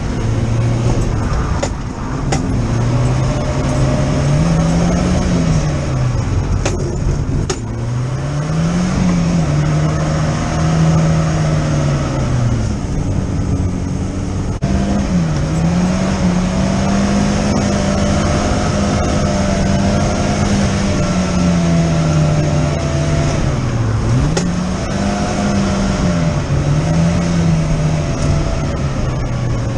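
1990 BMW E30 316i's M40B16 four-cylinder engine heard from inside the cabin, its note climbing and dropping again and again as the car is driven hard through the gears, with tyres hissing on the wet road. A few sharp clicks sound in the first several seconds.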